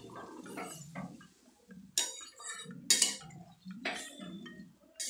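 Metal spatula stirring a watery chickpea-and-potato curry in a metal kadai, with soft sloshing and three sharp clinks of the spatula against the pan about a second apart from about two seconds in.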